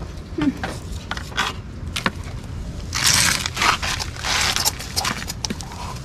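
Kitchen knife scaling a sea chub (Kyphosus) on a wooden board: a few sharp clicks and knocks of the blade, then a dense, loud scraping of scales coming off, from about three seconds in for nearly two seconds.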